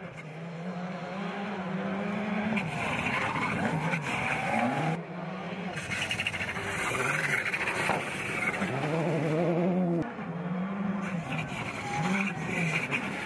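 Rally cars on a gravel stage, one after another: engines revving hard, the pitch climbing and then dropping at each gear change as each car approaches, with sudden breaks where one car's pass gives way to the next.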